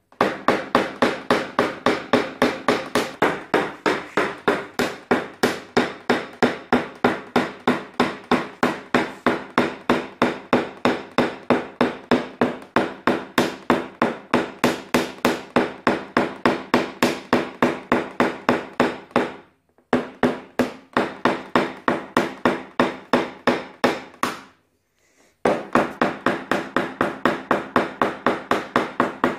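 Paintless dent repair tap-down: a small hammer striking a knockdown punch held on a car door's sheet metal, knocking down the high spots around a stretched crease. The taps are light and even, about four a second, each with a short ring from the panel, with two brief pauses about twenty and twenty-five seconds in.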